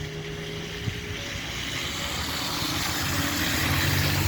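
Strong wind blowing, building steadily louder over the few seconds, with a faint low hum underneath.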